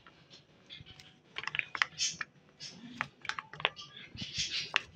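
Plastic squeeze bottle of mayonnaise being squeezed: a scatter of small clicks and crackles from the plastic, with short soft squelches as the mayonnaise comes out.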